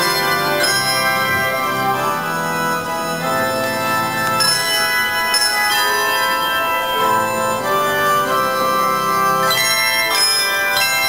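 Handbell choir playing a piece: many bells ringing together in sustained chords that change every second or two, with low bass bells under the melody.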